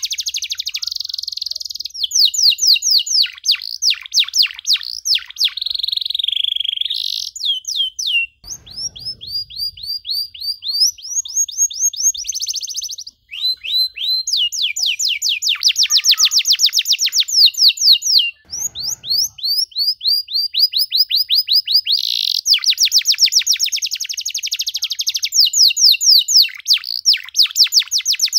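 Canary singing a long, fast song of rapid trills and repeated sweeping notes, breaking off briefly about 8 and 13 seconds in.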